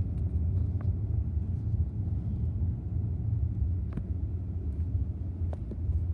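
Steady low rumble of a car's engine and tyres, heard inside the cabin while driving, with a few faint clicks.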